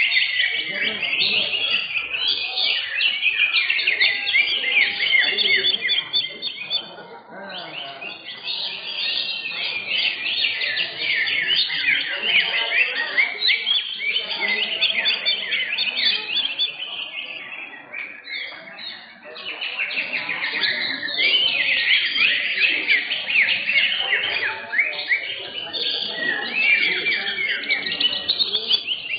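Several greater green leafbirds (cucak hijau) singing at once: a dense, continuous stream of rapid high chirps, trills and mimicked phrases. The song dips briefly about a quarter of the way in and again past the middle.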